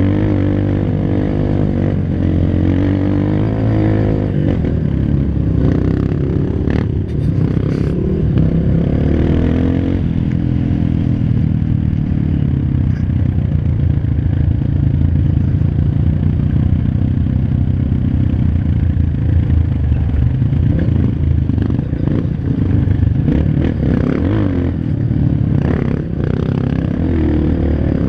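Off-road trail motorcycle engine running under the rider, its pitch rising and falling over the first ten seconds and then holding steadier. Knocks and rattles of the bike over rough ground come about six to eight seconds in and again near the end.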